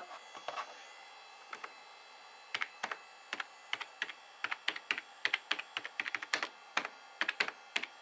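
Typing on a computer keyboard: a few scattered key clicks at first, then quick, steady typing from about two and a half seconds in.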